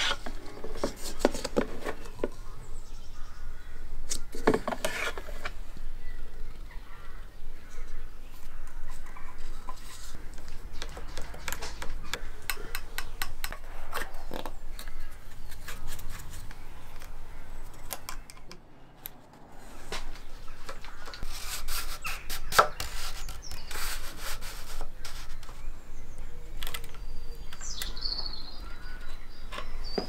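Close-up handling sounds of a Shimano XTR hydraulic disc-brake bleed: a plastic syringe drawing mineral oil from a bottle and a bleed funnel being fitted to the brake lever, with rubbing, small clicks and light knocks throughout. There is a short high chirp near the end.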